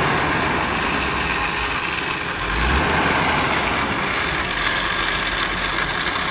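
A Jeep Cherokee's engine running steadily at idle, with a deeper low hum that comes in about two and a half seconds in and drops away near the end.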